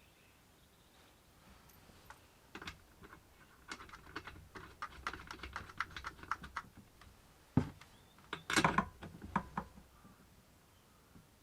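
A run of small, quick clicks and light taps as small hard parts are handled, with a louder knock about seven and a half seconds in and a burst of sharp clatters a second later.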